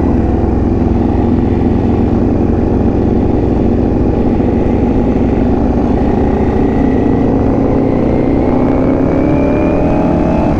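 Ducati V4 S motorcycle's V4 engine running under way, heard from the rider's seat over rushing low rumble. In the last couple of seconds the engine pitch climbs steadily as the bike accelerates.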